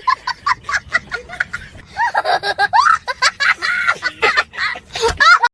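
A person snickering and giggling in quick repeated pulses, the pitch swooping up and down, stopping abruptly near the end.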